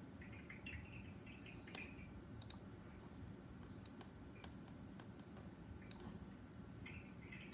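Computer mouse clicking: a dozen or so scattered single clicks, faint over a steady low room hum, with a short patter of quick higher-pitched ticks near the start and again near the end.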